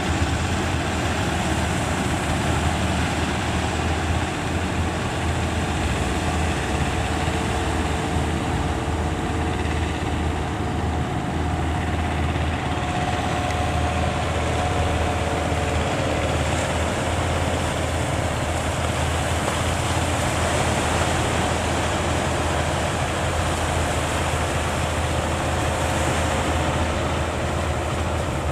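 Fishing boat's engine running steadily with a low hum, its pitch shifting slightly about halfway through, under a dense wash of wind and sea noise.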